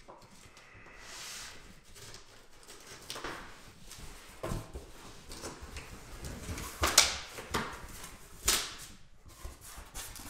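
Scissors cutting into a cardboard box, then the box flaps opened and handled: cardboard scraping and rustling with several sharp knocks and bumps, the loudest about seven seconds in.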